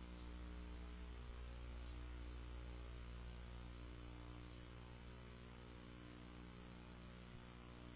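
Faint, steady electrical mains hum with a low buzz and hiss; nothing else is heard.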